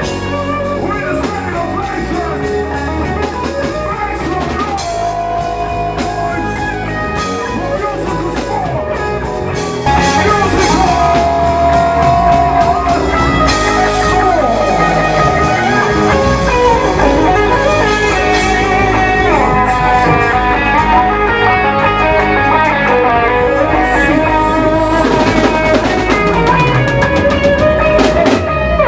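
Loud music played over a sound system, with guitar, drums and some singing; it gets louder about ten seconds in.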